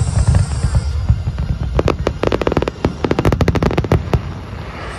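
Fireworks going off: a rapid string of sharp crackling pops from about two seconds in until about four seconds in, over a steady low rumble.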